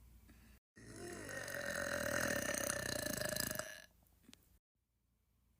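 A single long burp lasting about three seconds, starting about a second in, its pitch wavering near the start before it settles.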